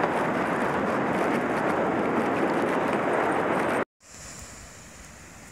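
Loud, steady wind noise on the microphone as it is carried quickly along the beach. About four seconds in it cuts off suddenly to a much quieter hush of surf breaking.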